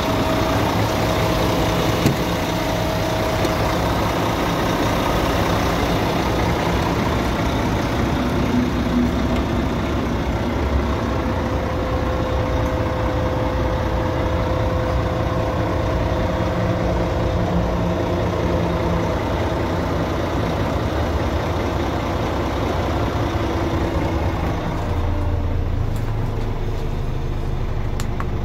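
Scania P410 concrete mixer truck's diesel engine idling steadily. A few seconds before the end the sound turns duller and lower, as heard from inside the cab.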